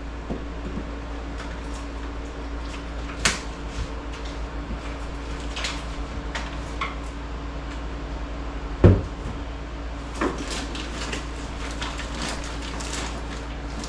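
Scattered light clicks and knocks of tools and hardware being handled, with one heavier knock about nine seconds in and a run of quick light clicks near the end, over a steady low hum.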